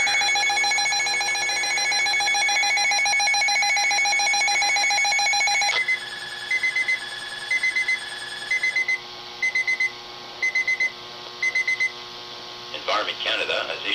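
Weather alert radio sounding the alarm for a severe-weather bulletin, here a snow squall warning. A loud continuous warbling alarm tone stops suddenly about six seconds in and gives way to quieter groups of three or four short high beeps, about one group a second. The announcement voice begins near the end.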